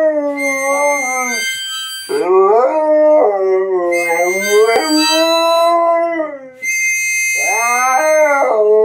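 Husky howling in long, wavering, gliding notes, several howls with short breaks between them and a longer pause about six and a half seconds in. A fainter steady high tone sounds behind the howls in stretches.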